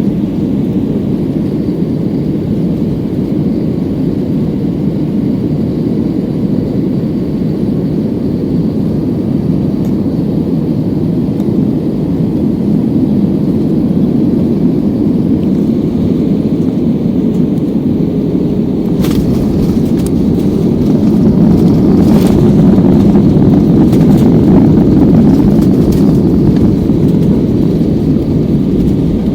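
Cabin noise of an Airbus A320-200 airliner: a steady low rumble of engines and rushing air, growing louder about two-thirds of the way in, with a couple of sharp knocks.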